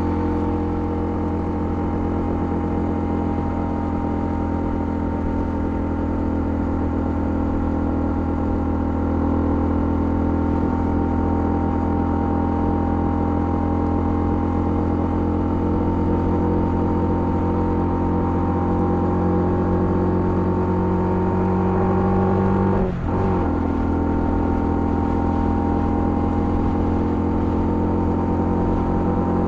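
Honda CL250's single-cylinder engine running steadily as the motorcycle rides along, its pitch creeping up slowly. Near the end there is a short break in the engine note, a gear change, after which it carries on.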